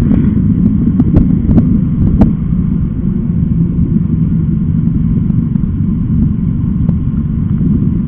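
Motorcycle riding along at a steady speed: a continuous low rumble of engine and wind on the onboard microphone, with no change in engine speed.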